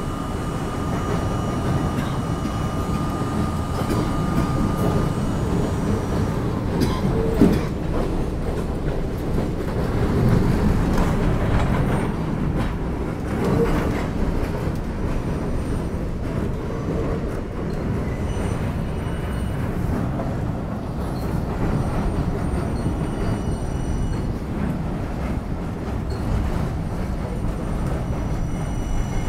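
NYC subway train running along elevated track, heard from on board: a steady rumble of steel wheels on the rails. A thin steady high tone fades out after about five seconds, and there is one sharp knock about seven seconds in.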